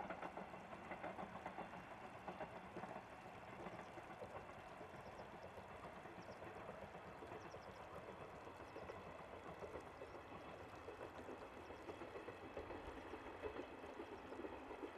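Steady trickling of running water, with faint high chirps in the middle.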